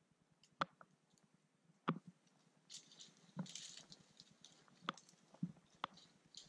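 Footsteps crunching through dry grass and brush: a few sharp cracks of snapping stems and twigs, and a longer rustling swish about three seconds in.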